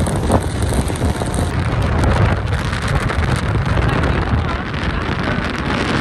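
Wind buffeting the microphone, with a steady low rumble of road noise from a moving vehicle.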